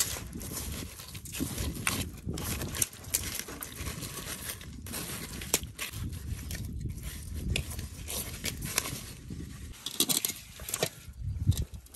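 Hands kneading and rubbing a raw pig tail in a wet chili marinade inside a metal pan: irregular wet squelches and slaps with scrapes and knocks against the pan, with a cluster of louder knocks near the end as the tail is lifted out.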